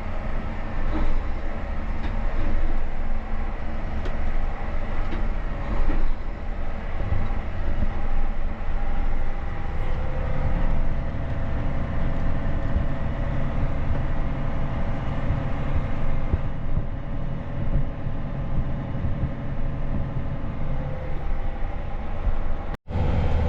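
Large diesel vehicle running steadily under way, a dense rumble with several steady engine tones. The sound drops out for an instant near the end.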